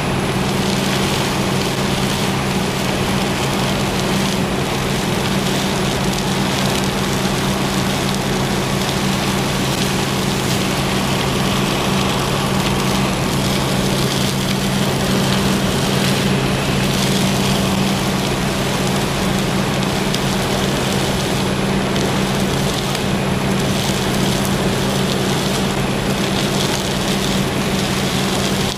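Loud, steady drone of heavy machinery running without change: a low hum under a constant hiss.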